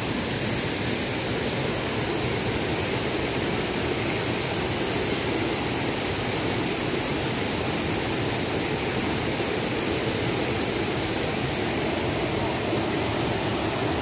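Steady rush of a rocky mountain stream tumbling over small rapids and a low weir, an even noise with no breaks.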